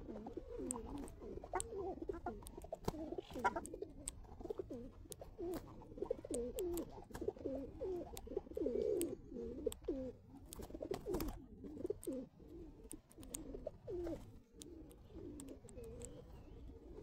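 Feral pigeons cooing: several low, wavering coos overlapping one another without a break, with scattered light clicks throughout.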